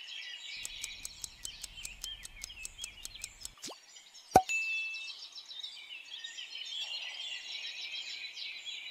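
Rapid countdown-timer ticking, about seven ticks a second, for about three seconds. It is followed by a single sharp click with a short tone a little over four seconds in, as the choice is revealed. A steady background of bird chirping runs underneath throughout.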